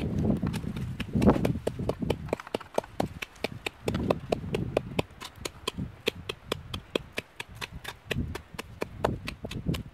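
Pestle pounding chillies and garlic in a coconut-shell bowl: quick repeated knocks, about four or five a second, with duller thumps now and then.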